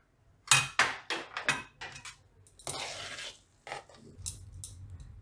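Wooden spatula knocking and scraping against steel utensils as thick cooked rice-and-lentil dough is scooped out of a pan onto a steel plate: several sharp taps in the first second and a half, a longer scrape around the middle, then a couple more taps near the end.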